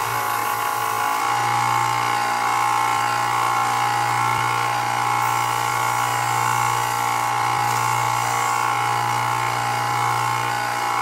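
Belt sander running steadily, sanding down the rough edges of a leather knife sheath.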